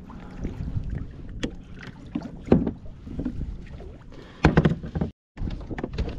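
Knocks, bumps and rustling against a plastic fishing kayak's hull and deck as fishing line and gear are handled, with louder bumps about two and a half and four and a half seconds in. The sound cuts out completely for a moment about five seconds in.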